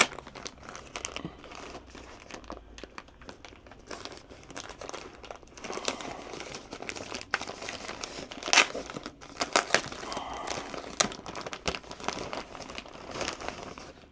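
Thin plastic bag crinkling and rustling as hands work an item out of it, with sharp crackles that grow busier and louder in the second half.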